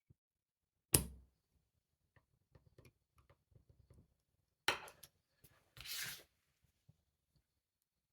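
Metal clicks and light tapping from a tubular padlock being worked in a vise: a sharp click about a second in, a run of faint ticks, a second sharp click, then a brief scrape.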